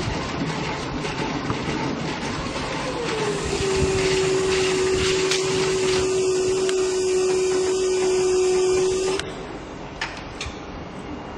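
Electric motor of a counterweight drum handler running with a steady whine that glides slightly down in pitch and then holds, over a continuous rushing noise. The whine stops suddenly near the end, leaving only the quieter rush.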